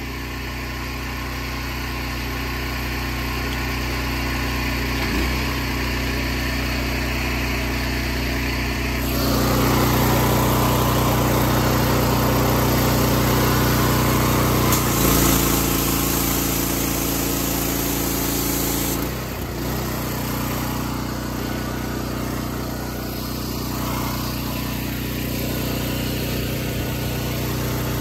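The gas engine of a direct-drive pressure washer running steadily. About nine seconds in, a louder rushing noise joins it, and the sound shifts again a couple of times.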